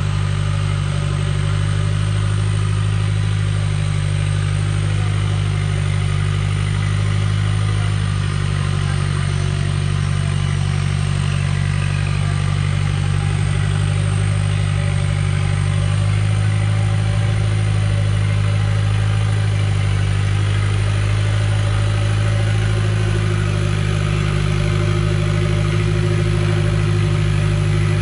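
Off-road 4x4 truck's engine running steadily at low revs, an even low drone.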